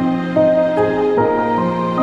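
Slow, gentle background music: sustained instrumental notes in a soft melody changing about every half second over held low notes.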